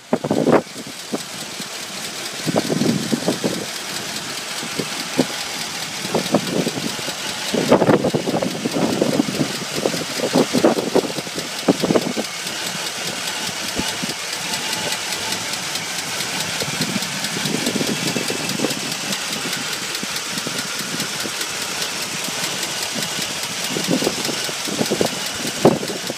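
1979 Chevrolet K10 pickup's engine running steadily, heard close up in the open engine bay. A steady hiss runs throughout, with uneven louder rumbles every few seconds.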